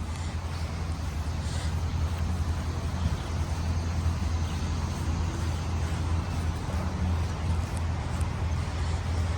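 Antique tractor engine running steadily nearby, a low, even drone with a fast pulsing beat.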